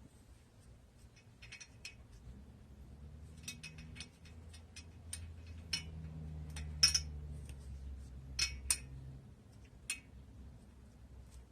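Light metallic clinks and taps of hand tools and brake parts being handled, irregular and scattered, with a few sharper clinks, the loudest about seven seconds in, over a faint low hum.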